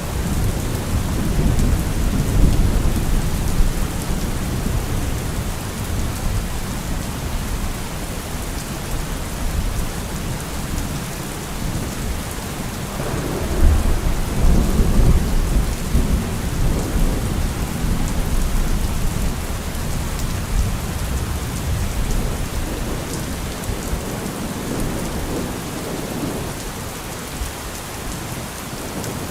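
Thunderstorm: steady rain falling with rolling thunder rumbling underneath, the thunder swelling loudest about halfway through.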